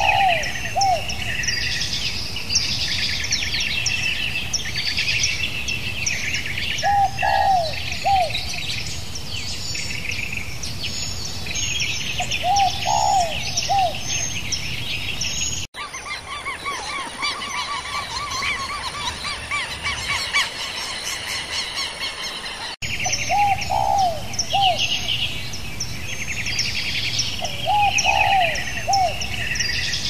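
A dense chorus of small birds chirping and singing, with a lower call of three or four quick notes repeating about every five to six seconds. About halfway in it cuts abruptly to a different stretch of birdsong for some seven seconds, then the first chorus returns.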